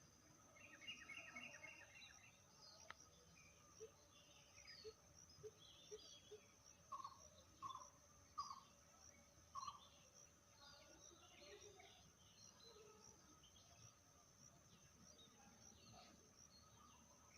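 Faint mixed birdsong: many small birds chirping and trilling, with a run of four lower, falling call notes around the middle, over a steady high-pitched tone.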